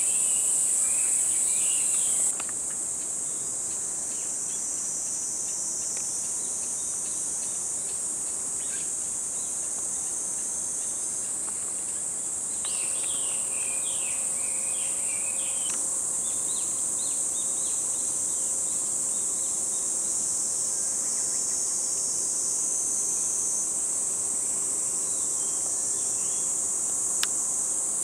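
Summer insect chorus: a steady, high-pitched shrill buzz, with short chirps at times and one sharp tick near the end.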